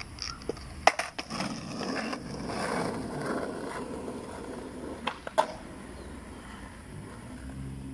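Skateboard wheels rolling over an asphalt road, with sharp clacks of the board about a second in and twice more around five seconds in.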